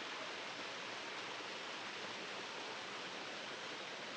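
Steady rushing of a waterfall, running low in the dry season.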